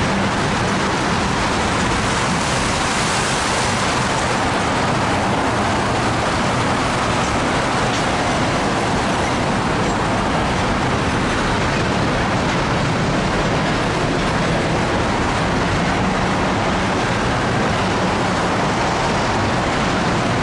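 Loaded oil-train tank cars rolling slowly past, with a steady, unbroken noise of steel wheels on the rails.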